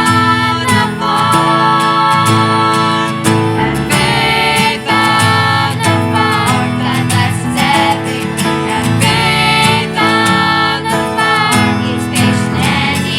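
Music: a song with guitar accompaniment and singing.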